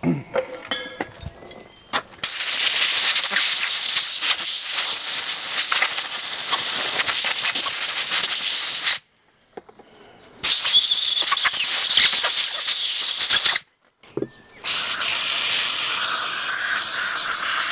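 Long blasts of compressed air from a blow gun with a long thin nozzle, a loud steady hiss that cuts off abruptly twice, with a few light knocks of handling parts before it starts; near the end the hiss comes from an aerosol spray can sprayed onto a rusty cast part.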